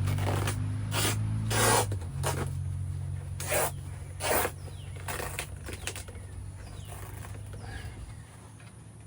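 A series of short scraping and rubbing sounds, a dozen or so strokes that thin out after about six seconds, over a low steady hum that drops in pitch about two seconds in and fades toward the end.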